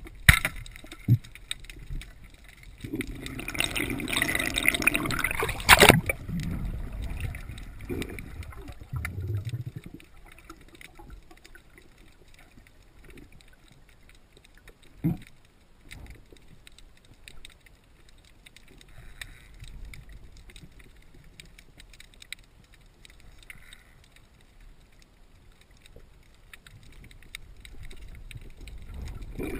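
Underwater water noise during a spearfishing dive, heard from below the surface. There are a few sharp clicks near the start, then a rush of gurgling water noise from about three to six seconds in that ends in a loud sharp crack. After that comes a quieter hiss with scattered clicks.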